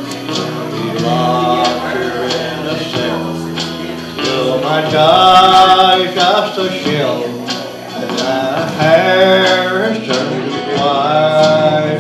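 Country song: a man singing long held notes over a steadily strummed guitar.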